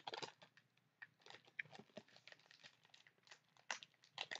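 Faint crinkling and clicking of a Bean Boozled jelly bean box being handled, a scattering of small irregular ticks with a few louder ones near the start and near the end.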